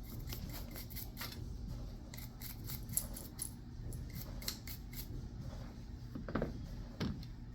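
A cleaning brush scrubbing a .45 ACP pistol barrel wet with carbon solvent: quick, uneven scratchy strokes.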